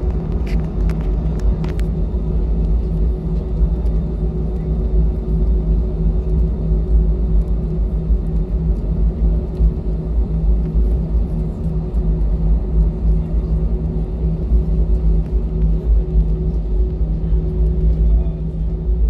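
Steady engine and airflow rumble inside an Airbus A320 cabin, with a constant low hum. A few light clicks come in the first two seconds.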